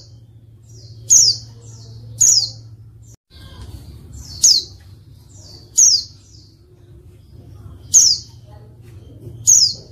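Female white-eye (pleci) calling: six short, high-pitched call notes, each sliding sharply downward, spaced about one to two seconds apart. It is the female's call used to provoke male white-eyes into answering and singing.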